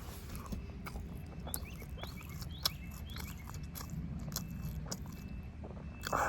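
Close-up chewing of rotisserie chicken: wet mouth clicks and soft crunches of meat being bitten and chewed, over a steady low rumble.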